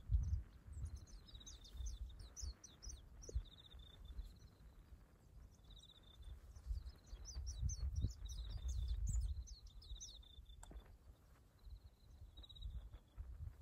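Wild birds chirping and trilling, with short repeated calls throughout. A low rumble swells under them in the middle.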